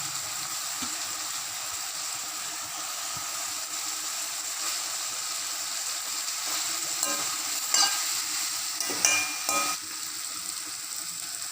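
Turkey berries, tomatoes, coriander and curry leaves sizzling steadily in hot gingelly oil in a kadai as they are sautéed and stirred, with a few short scrapes of the stirring utensil against the pan in the latter half.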